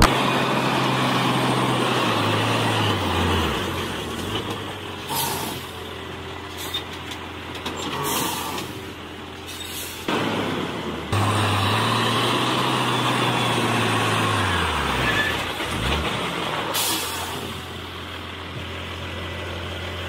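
Heavy dump truck's diesel engine running under load, its revs sagging away twice. A few short hisses of air come in between.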